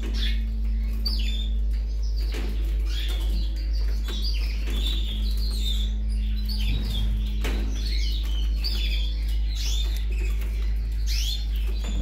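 Canary nestlings begging with rapid, high-pitched cheeps as they are hand-fed egg-food paste from a wooden stick, over a steady low hum.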